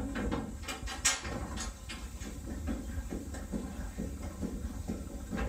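Vee-twin steam engine of a steam launch running, with a regular rhythmic beat of knocks from its moving parts over a low rumble. One sharper click about a second in is the loudest moment.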